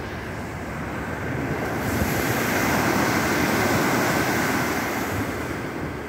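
Wind rushing over the microphone and sea washing along the hull of a ship under way. It swells about two seconds in and eases off near the end.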